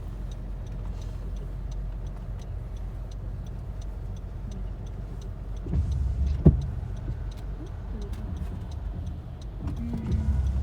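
Steady low road and engine rumble inside a moving car's cabin, with faint regular ticking and one sharp knock about six and a half seconds in.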